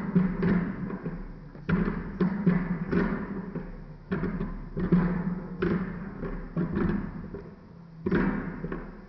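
Background music with deep drum strikes over a held low note, coming in phrases that swell and fade.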